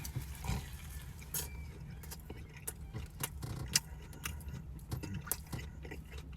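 A person chewing a bite of a crispy fried chicken sandwich: scattered soft crunches and wet mouth clicks over a low steady hum.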